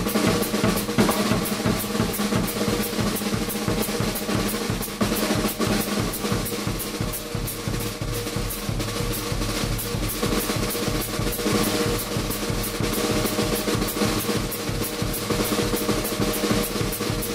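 Gretsch drum kit played solo: a fast, unbroken run of snare-drum strokes close to a roll, moving around the toms, with bass drum underneath.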